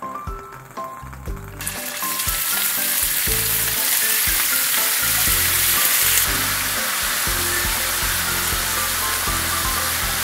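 Thin slices of raw meat sizzling in hot oil in a nonstick frying pan. The sizzle starts suddenly about a second and a half in and eases a little about six seconds in. Light background music plays underneath.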